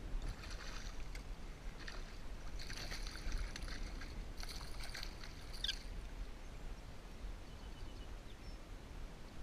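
Water splashing and sloshing in irregular bursts from a hooked smallmouth bass being played in shallow creek water, with a brief high squeak a little past the middle. A steady low rumble runs underneath.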